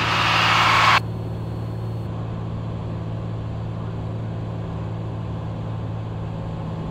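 Cessna 182T's six-cylinder Lycoming engine and propeller in flight, a steady low drone heard in the cabin. A loud burst of hiss cuts off sharply about a second in.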